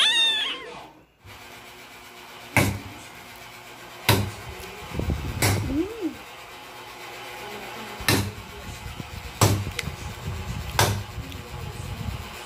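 A short high voice right at the start, then sharp knocks repeating roughly every second and a half.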